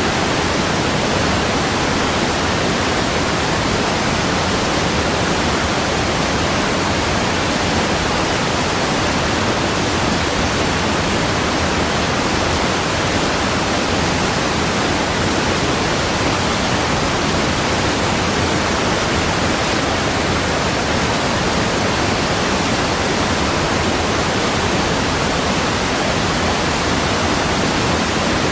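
Steady rushing water, an even, unchanging hiss like a waterfall.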